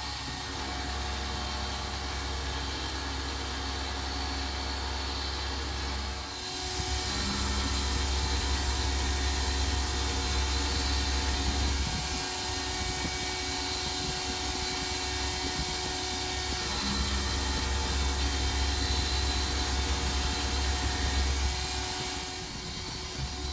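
A home-made CNC milling machine is cutting an aluminium block with a carbide end mill. The spindle runs steadily and the cut gives a continuous hiss. The sound grows louder about six seconds in, when the cut loads up, and eases near the end.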